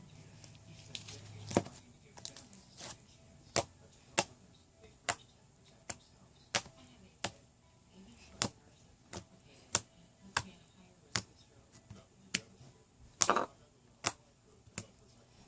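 Slime being squeezed and poked, making sharp clicks and pops about once every two-thirds of a second. There is a louder, longer pop about thirteen seconds in.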